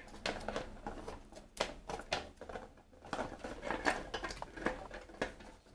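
Molded plastic parts of a floating turtle basking platform being handled and fitted together: irregular small clicks, taps and scrapes as the ridged ramp is worked into the platform's edge.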